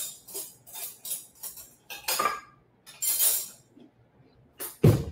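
A spoon clinking and scraping against a pot in a string of short separate knocks, with a heavier thump near the end.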